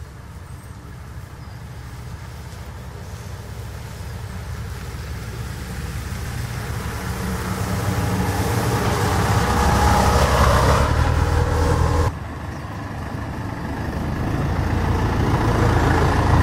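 Small shuttle bus approaching and driving past close by, its engine and tyre noise on the wet road growing louder to a peak about ten seconds in. The sound drops suddenly about twelve seconds in, then builds again and cuts off sharply at the end.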